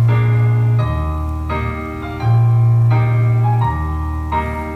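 Gentle background keyboard music: held piano-like chords over a bass line whose notes change about every second and a half.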